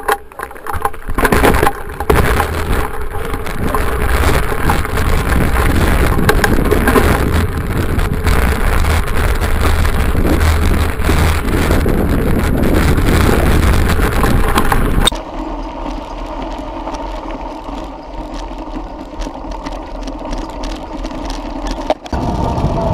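Wind rushing over a bike-mounted camera's microphone and mountain-bike tyres rolling on a rough lane, a loud, heavy rumble. About two-thirds of the way through it drops abruptly to a quieter rolling hum with a faint steady tone, then rises again near the end.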